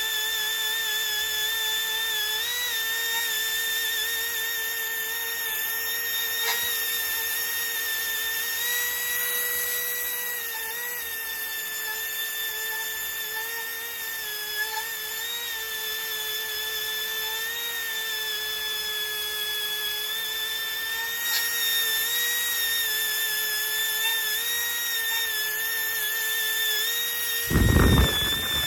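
Cylinder boring machine cutting a bore in a Cummins engine block: a steady whine that wavers slightly in pitch. A short loud thump comes near the end.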